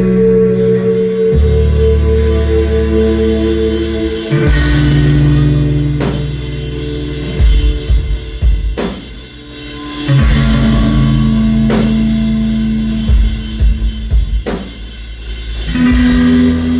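Live instrumental post-rock band: electric guitars and bass holding long notes that shift every few seconds, with drum and cymbal hits, played loud.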